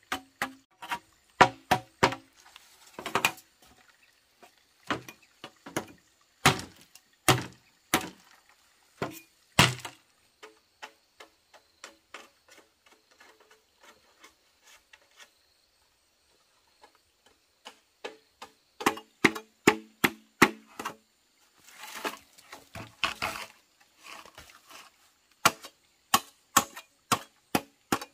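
Irregular series of sharp chopping strikes, some with a short ringing tone, pausing for several seconds about halfway through before resuming at a quicker pace.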